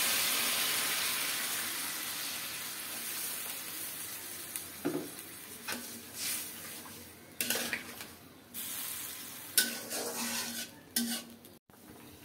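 Hot water poured into a pan of frying pointed gourd, tomato and spices sizzles loudly and fades away over the first few seconds. Then a spoon stirs the pan, with a series of short clinks and scrapes against it.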